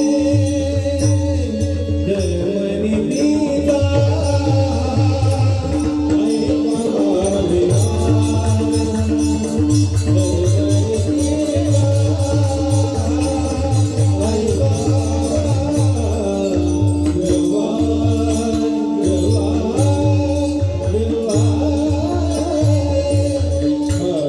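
Marathi devotional song sung by a man over a steady held drone, with a low drum beat and fast, steady metallic percussion.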